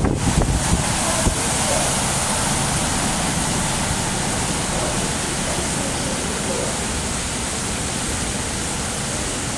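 Steady background roar of a busy indoor train-station concourse, with indistinct distant voices and a few louder bumps in the first second.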